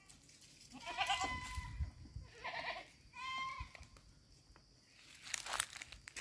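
Goat bleating three times in quick succession, the first call the longest. Near the end come a few brief scuffing noises.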